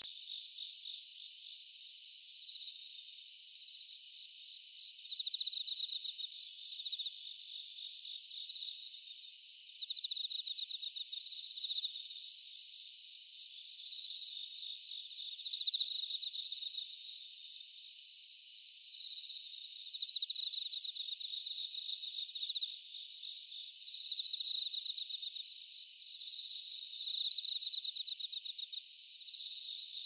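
Night chorus of singing insects: several high, steady trills ringing together without a break, with a pulsed chirping trill standing out every few seconds.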